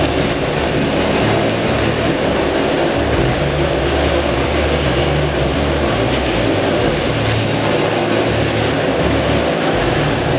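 Motorcycle engines running hard inside a steel-mesh Globe of Death, the engine note wavering up and down as the bikes circle the sphere.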